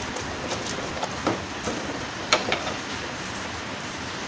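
Screwdriver working the screws of a split air conditioner indoor unit's wiring terminal block: a few irregular light clicks and scrapes of metal on the screws, over a steady background hiss.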